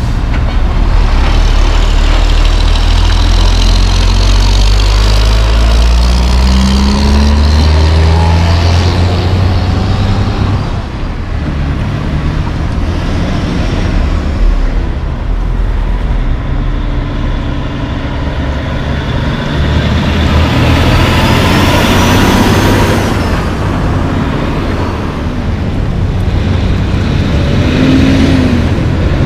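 Heavy diesel concrete mixer trucks driving past, an engine rising in pitch in steps as it pulls away through the gears, with a louder close pass a little after the midpoint.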